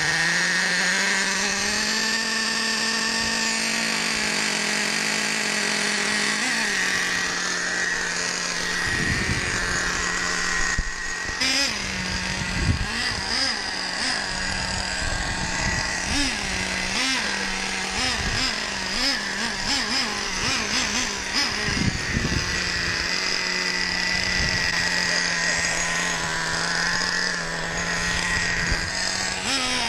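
Small RC car engine idling with a steady tone, revving up and down in short blips between about twelve and twenty-two seconds in.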